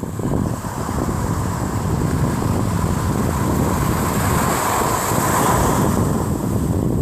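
Ocean surf at a beach with strong wind buffeting the microphone; the hiss of a wave's wash swells from about three seconds in and dies down at the end.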